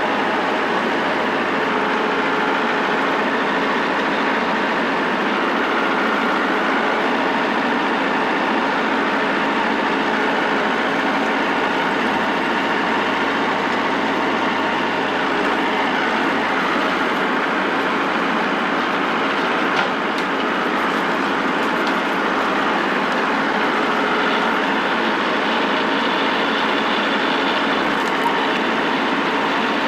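Tractor engine running steadily as the tractor drives, heard close from the machine, with a brief knock about twenty seconds in.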